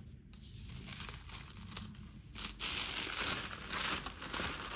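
Rustling and crinkling of a large unframed art print sheet being handled and moved about, growing louder about halfway through.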